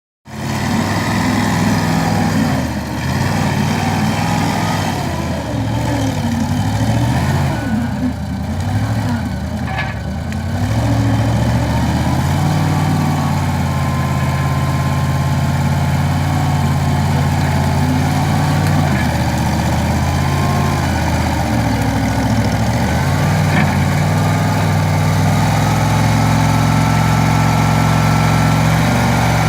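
Skid steer's engine running, its speed rising and falling unevenly for about the first ten seconds, then settling into a steady run for the rest.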